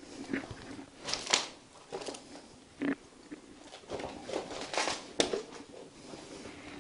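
Footsteps crunching and crackling over scattered broken wood and debris on a hard floor, in irregular steps.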